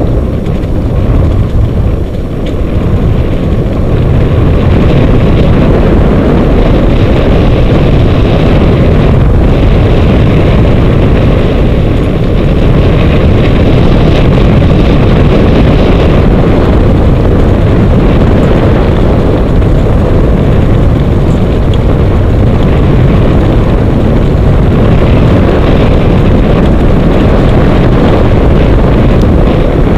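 Wind buffeting the microphone over the rumble of a dog-racing rig rolling fast along a dirt track behind its team. It gets louder about four seconds in and then holds steady.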